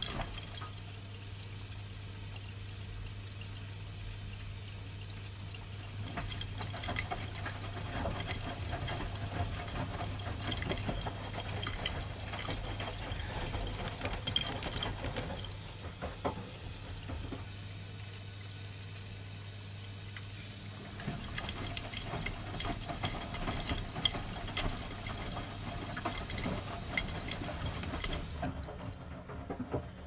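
Miele front-loading washing machine filling and washing: water splashes and sloshes in the turning drum in two spells with a quieter pause between, over a steady low hum that stops about two-thirds of the way through.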